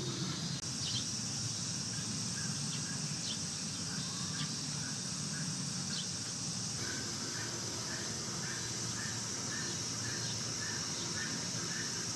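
Outdoor summer ambience: insects droning steadily at a high pitch, with a few short bird chirps. From about halfway a soft note repeats two to three times a second.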